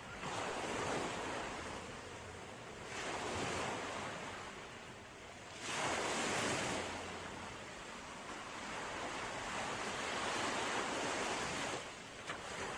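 Sea waves breaking and washing on a shore: a continuous rushing surf that swells and ebbs. The loudest wave breaks about six seconds in.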